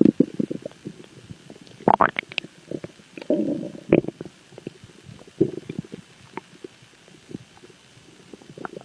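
Stomach growling: irregular gurgles and rumbles broken by quick pops, with the loudest gurgles about two seconds in and a longer rumble between three and four seconds in.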